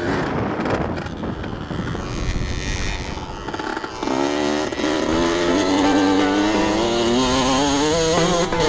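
Dirt bike engine running under throttle over rough ground, its pitch wavering with the revs; about halfway in it gets louder and climbs in steps as the rider accelerates.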